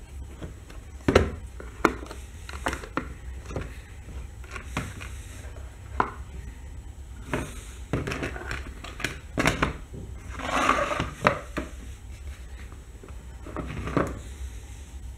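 Hard plastic clicks and clacks as a Hot Wheels Race Case is unlatched, opened and its plastic parts are lifted out and set down on a wooden table, the sharpest click about a second in. About ten seconds in there is a longer rustling scrape.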